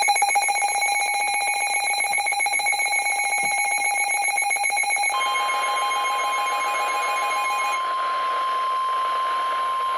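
Emergency Alert System alert tones. A harsh, rapidly pulsing alarm tone sounds for about five seconds. About five seconds in, a clean, steady single-pitch tone of the kind used for the NOAA Weather Radio 1050 Hz warning alarm takes over, overlapping the first tone briefly.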